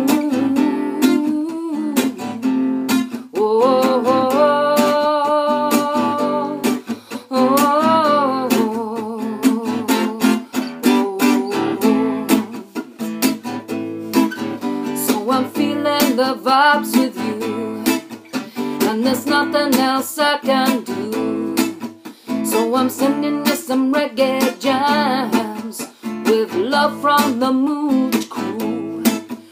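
Acoustic guitar strummed in a reggae-style jam, with a voice singing along over it at times.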